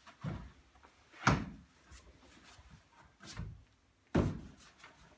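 Heavy thumps of bare feet and a body on timber decking during a partner takedown drill: four thuds, the loudest about a second in and another near the end.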